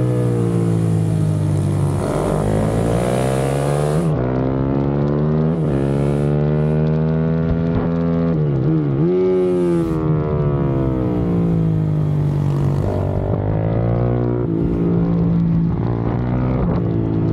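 KTM supermoto motorcycle engine under hard acceleration from on the bike, its pitch climbing through the gears and dropping at each shift, with a deep dip about nine seconds in before it climbs again. Wind rushes over the microphone for the first few seconds.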